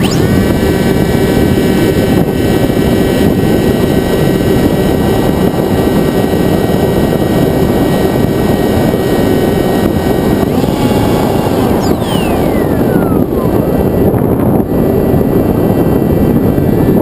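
Constant wind rush over the onboard camera of a Sky Surfer RC plane, with the whine of its electric motor and propeller running steadily. The whine shifts pitch about ten seconds in, and a couple of seconds later a whine falls steeply in pitch as the throttle comes back.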